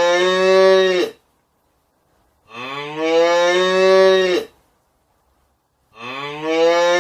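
Cow mooing three times. The first moo is already under way and ends about a second in, and two more follow, each about two seconds long, rising in pitch at the start and then held level.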